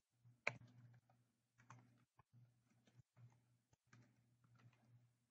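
Faint computer keyboard typing: scattered, irregular key clicks, with one sharper click about half a second in.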